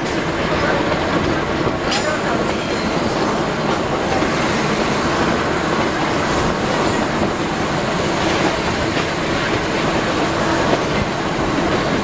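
YDM4 metre-gauge diesel locomotive running steadily along the track, heard from right beside it: a loud, even mix of engine and running noise.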